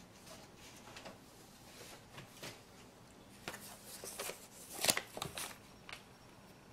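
Paper rustling and crinkling as the pages of a spiral notebook are handled and flipped back, with a run of louder rustles in the second half, loudest just before five seconds in.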